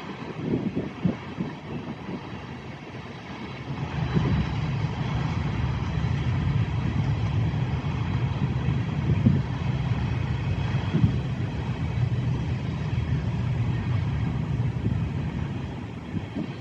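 A long train rolling past with a steady low rumble, which grows louder and steadier about four seconds in. Gusts of wind buffet the microphone at the start.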